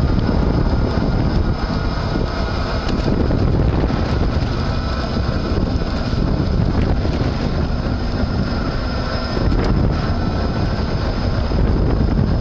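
Electric-assist bicycle's front hub motor running with a steady faint whine under heavy wind noise on the microphone while riding.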